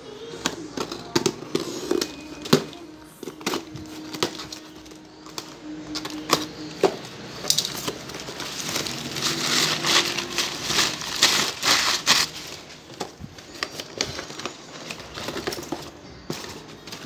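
A cardboard shipping box being cut open and unpacked: scrapes and clicks as a blade slits the packing tape and the flaps are pulled open, then crinkling and rustling of crumpled paper packing for a few seconds about halfway through.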